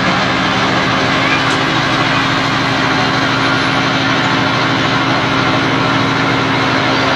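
A fire truck's engine runs steadily with an even, unchanging hum while it powers the raised turntable ladder.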